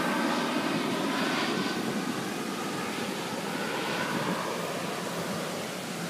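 Landing airliner's engines going away after passing overhead: a broad roar with a faint whine, fading steadily.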